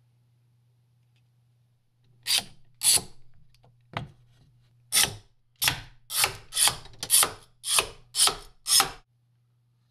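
A hand tool scraping in about a dozen short, harsh strokes roughly half a second apart, starting about two seconds in and stopping a second before the end.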